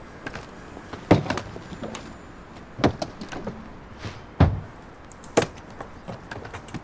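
Scattered knocks and thuds of a car door and luggage being handled at an SUV. There are about five sharp hits, the heaviest about a second in and about four and a half seconds in, over a low steady background.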